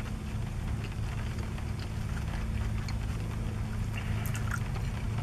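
Green salsa poured from a small plastic cup onto an open burrito, with a few light wet clicks about four seconds in, over the steady low hum of a car cabin.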